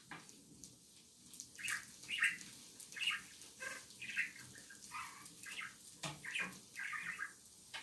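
Pet birds in a cage chirping and twittering in short, irregular calls, with a few light clicks between them.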